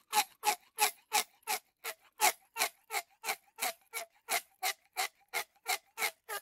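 Rose-ringed parakeet giving harsh, rasping squawks in a steady, even series of about three a second.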